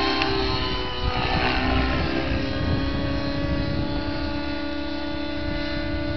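Align T-Rex 700 radio-controlled helicopter flying overhead: a steady whine of several held tones from its rotors and drivetrain, with a brief rush of noise between one and two seconds in.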